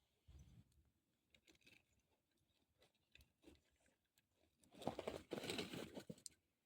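Faint handling noises: a low knock just after the start and a few light clicks, then a louder stretch of rustling, crunching noise about five seconds in that lasts around a second and a half.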